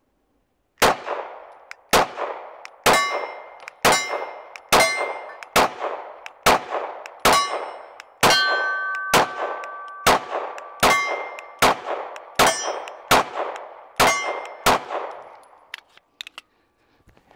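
Canik MC9-series 9mm micro pistol firing a string of about seventeen shots, roughly one a second, with Blazer 115-grain full metal jacket ammunition. A metallic ring hangs on after many of the shots.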